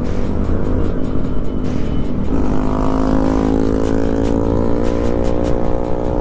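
Motorcycle engines running on the road with a steady low rumble, under background music with a quick, even beat. About two seconds in, a pitched engine note comes in and holds, rising slightly.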